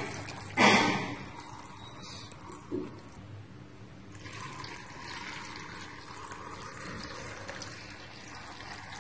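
Water poured from a steel vessel into a plastic jar of chopped winged beans, filling it to cover the pieces: a loud gush about a second in, then a softer, steady pouring.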